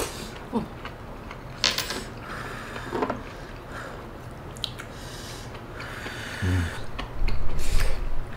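Eating sounds over a bowl of malatang: slurping and chewing, with scattered light clicks of chopsticks and spoon against the bowl.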